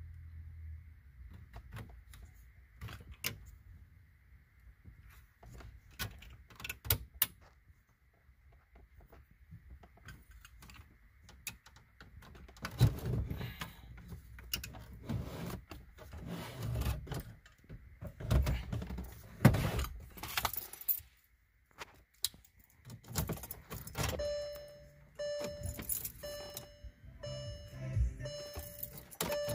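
Metal radio removal keys clicking, rattling and knocking as they are pushed into the release slots of a VW Touareg's factory head unit and worked to unlatch it. In the last few seconds a short electronic beep repeats over and over.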